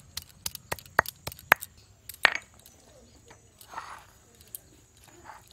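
Stone muller crushing fried onion, garlic, tomato and chilli on a flat grinding stone (shil-nora): a run of sharp knocks and cracks over the first two and a half seconds, then softer grinding scrapes.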